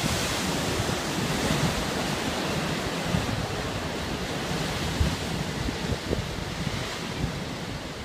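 Surf breaking on rocks below, a steady wash of sea noise, with wind buffeting the microphone in irregular low gusts.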